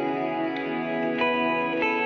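Background music led by a plucked guitar, with new notes sounding about every half second.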